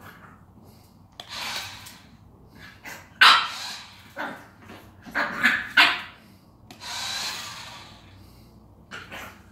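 French bulldog puppy barking in short, sharp yaps several times, loudest about three seconds in and again in a quick cluster around five to six seconds. Between the barks come two short hissing bursts.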